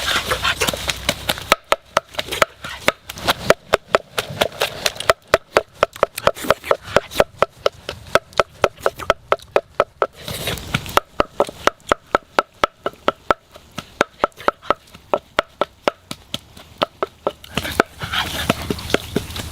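Rapid, steady chopping: a blade striking a wooden surface about three to four times a second, each stroke with a brief ringing knock. There is a short pause about halfway through.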